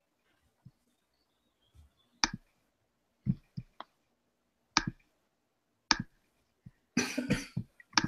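A handful of sharp, separate clicks a second or so apart, picked up by a computer microphone, then a short, dense, noisy burst near the end.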